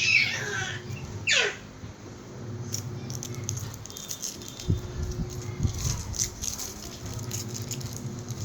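A surprise egg being handled and unwrapped: its wrapper and plastic crinkle and rattle in many quick small clicks, with a few low knocks. Two short falling squeaks come in the first second and a half.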